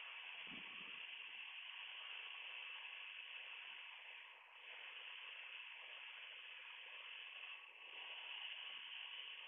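Faint, steady hiss of a light aircraft's cockpit intercom audio feed, with no speech on it.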